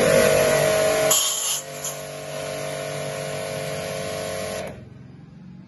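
Portable electric pressure washer running with the gun open: steady motor-pump whine under the hiss of the water jet, louder for the first second. It cuts off suddenly near the end as the gun is shut and the newly replaced auto cut-off limit switch stops the motor, the sign that the auto cut-off is now working.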